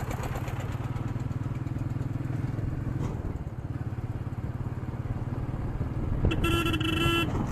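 Royal Enfield Meteor 350's single-cylinder engine running steadily while riding, picked up by an action camera's built-in microphone. About six seconds in a vehicle horn sounds for about a second, then briefly once more at the very end.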